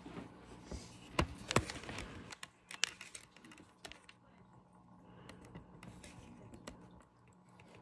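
Scattered small clicks and taps, irregular and densest over the first three seconds, over a faint steady low hum.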